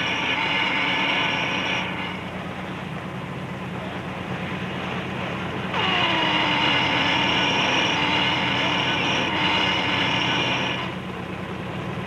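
Honda cylinder head boring machine running over a steady low hum, with a high multi-tone machining whine in two bouts. The first bout stops about two seconds in, and the second starts near six seconds with its pitch settling downward and cuts off sharply near eleven.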